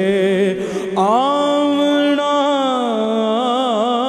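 Male voice singing Punjabi Sufi kalam through a microphone. About a second in he rises into a long held note, then breaks into wavering ornaments near the end, over a steady drone beneath.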